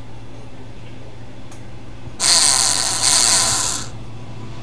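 Small brushed DC motor spinning with a high-pitched whir for about a second and a half, a screwdriver tip held against its shaft, then stopping. A relay switches it on for about one second in every four. A steady low hum underlies it.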